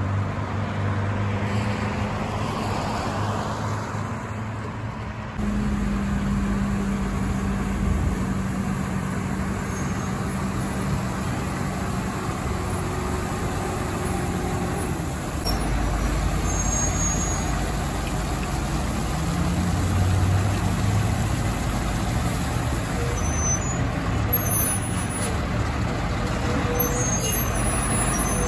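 Water truck's diesel engine running at low speed with a steady low hum, under the hiss of water spraying from its front spray bar onto the road. The sound shifts abruptly about five seconds in and again about halfway through.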